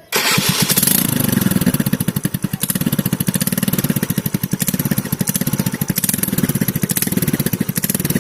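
A TVS scooter's single-cylinder engine running, with a loud, rapid exhaust beat. This is the 'over sound' of an exhaust leaking at a broken bend pipe, the pipe between engine and silencer, which needed welding and replacing.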